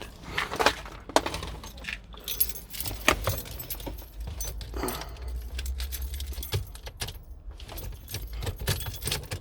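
Car keys jangling, with scattered clicks and rattles as the key is worked in the ignition, over a low steady hum.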